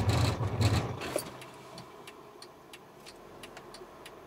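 Mercedes-Benz W212 E-Class coming to a stop at the end of a hard brake test, heard inside the cabin: the loud low road and drivetrain noise falls away about a second in. Then the indicator relay ticks, about three ticks a second.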